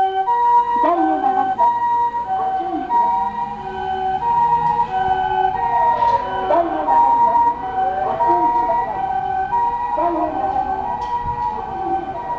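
Japanese ambulance's harmonic electronic siren, high and low tones alternating in a two-tone pee-po pattern. The pitch sweeps down around the middle and again a couple of seconds later.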